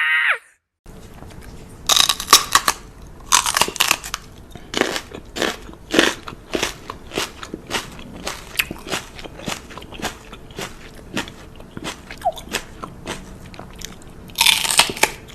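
Close, irregular crunching of something hard being bitten and chewed, a few crunches a second. A louder rustling burst comes near the end.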